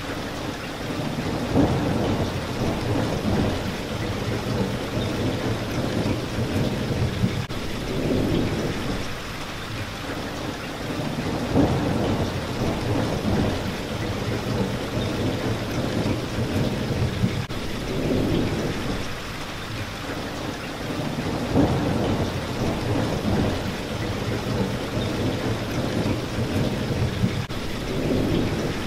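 Steady rain falling on a window pane, with low thunder rumbles that swell and fade every few seconds.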